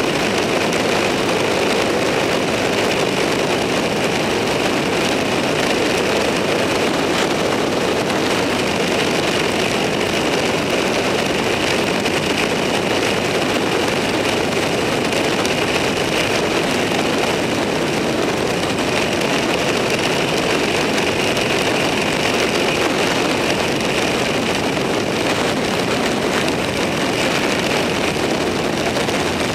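Steady running noise of a vehicle cruising along a road, engine and road rush holding even with no change in speed.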